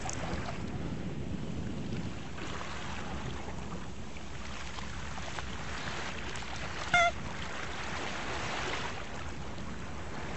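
Soft sea ambience, a steady wash of waves, with one brief high squeak about seven seconds in.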